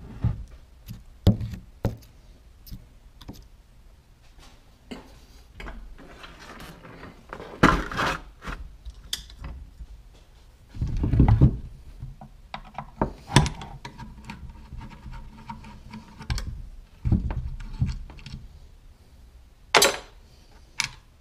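Screwdriver and loose metal parts of a Saiga rifle (an AK-pattern rifle) clicking, scraping and knocking against the rifle and a wooden workbench as screws are backed out during disassembly. Irregular small clicks, with a handful of louder thunks as parts are set down or shifted.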